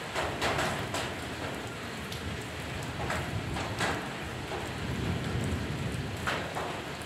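Steady rain falling, with about ten sharp, separate drops striking close by at uneven gaps.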